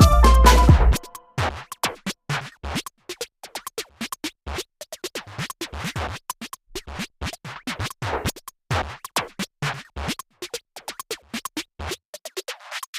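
Background electronic music: a full, loud passage cuts off about a second in, giving way to sparse, irregular clicky beats with a scratch-like texture.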